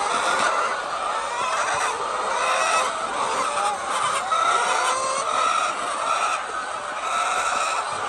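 A flock of laying hens calling and clucking together, many overlapping calls at once.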